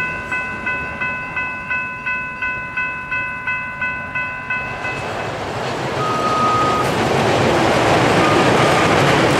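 Railroad grade-crossing warning bell dinging rapidly, about three strikes a second, stopping about five seconds in. Then a CTA rapid-transit train passes, its wheels and running gear rising to a steady loud rumble, with a brief high tone twice.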